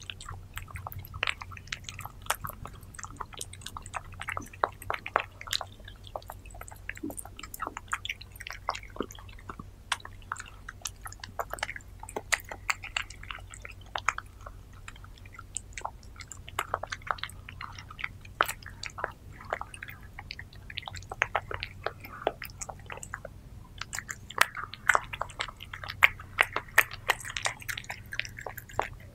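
Two cats, a white calico-type and an orange tabby, chewing and biting soft pink food from a wooden board at close range. The rapid, irregular clicks of their mouths carry on throughout and grow denser near the end.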